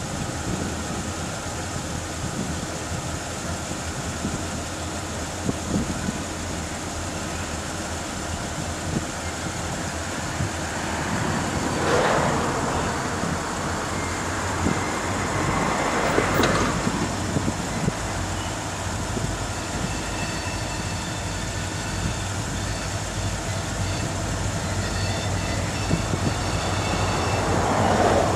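Diesel freight locomotives approaching slowly on a curve, their engines a steady low drone that grows louder as they come near. There are a few brief louder swells of noise along the way.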